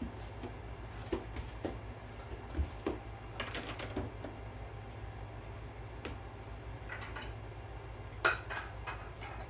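Dishes and cutlery clinking and knocking as they are taken out of a dishwasher and put away: scattered clinks, the loudest a sharp clatter about eight seconds in.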